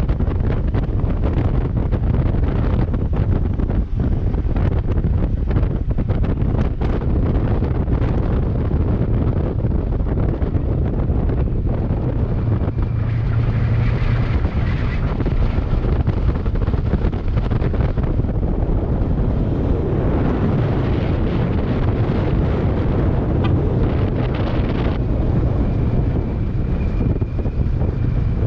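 Wind buffeting the microphone of a moving Kawasaki Versys 650 motorcycle, with its parallel-twin engine running underneath at a steady pace. A faint thin whistle comes and goes about halfway through and again near the end.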